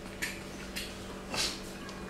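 Baby monkeys sucking on milk bottles: a few short smacking clicks from the teats, the loudest about one and a half seconds in, over a faint steady hum.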